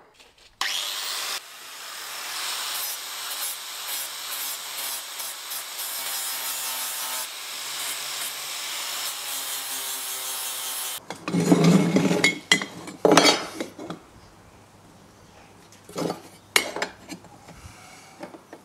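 Angle grinder dressing the cut ends of steel square tubing, a steady grinding of the disc on the metal that stops abruptly about eleven seconds in. Then a few loud knocks as the steel tube pieces are set down and lined up on the bench, followed by some lighter clicks.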